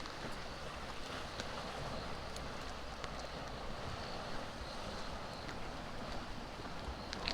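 Steady outdoor wind and water noise, with a low rumble and scattered faint ticks.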